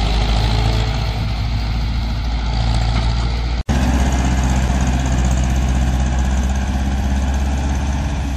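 Ursus C-360 tractor's diesel engine running steadily while pulling loaded grain trailers. The sound drops out for an instant about three and a half seconds in, then the engine carries on.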